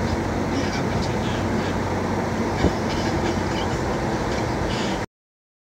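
Steady road and engine noise inside a moving car's cabin, with a single sharp knock about two and a half seconds in. The sound cuts off abruptly about five seconds in.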